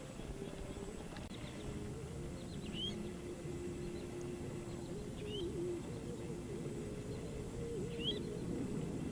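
A bird giving short rising chirps, repeated about every two and a half seconds, over a steady low hum and outdoor background noise.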